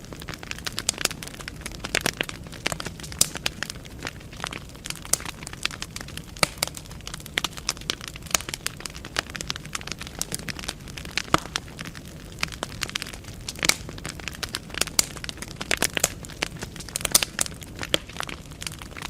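Wood fire burning in a fireplace, logs crackling and popping with frequent irregular sharp snaps over a steady low rumble of flame.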